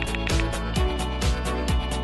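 Background music with a steady beat, about two kick-drum hits a second, over sustained pitched layers.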